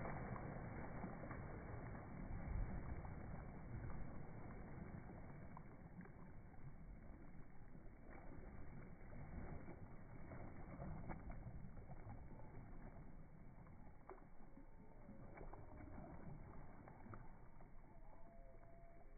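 Water splashing and churning as a cocker spaniel plunges into a river and swims through the current, heard slowed down. The splashing is loudest at the start and fades to a steadier rush of water, with a few light clicks.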